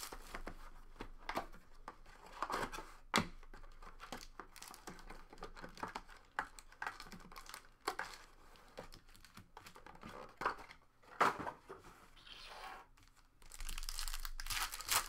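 Foil trading-card pack wrappers from a Panini Prizm Collegiate basketball box crinkling and being torn open by hand, with scattered sharp crackles. A longer tear comes near the end.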